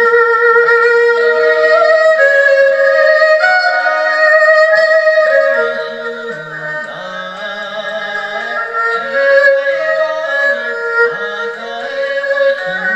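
Instrumental ensemble music: a melody of held notes that step and occasionally glide between pitches, over a lower accompanying line, louder in the first half and softer in the second.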